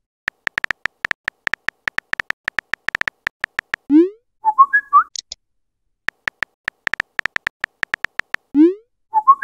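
Phone-keyboard typing sound effect, rapid key clicks, then a rising swoosh as the message is sent and a short chime of a few notes; this happens twice.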